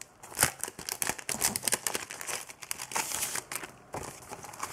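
Sheets of printed die-cut card rustling and crinkling in the hands as they are handled and leafed through, in irregular rustles with the sharpest about half a second in.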